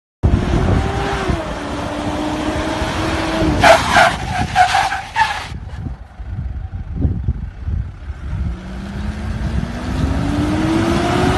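SUV engine running, its pitch rising steadily over the last few seconds as it revs up. About three and a half seconds in, a quick run of five or so sharp, loud noises sounds over it for a couple of seconds.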